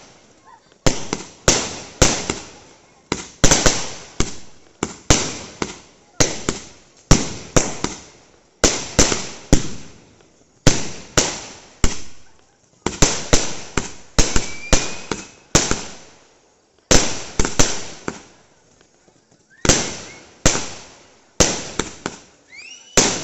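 A 240-shot aerial fireworks cake firing shot after shot: sharp bangs, often two or three a second, each trailing off in an echo, with a few short pauses between volleys. Faint rising whistles can be heard twice, about midway and near the end.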